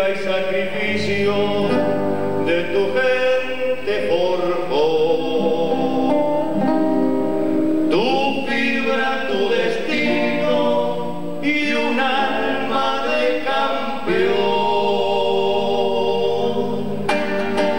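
Singing with guitar accompaniment, the voice holding long notes; near the end, strummed guitar chords come to the front.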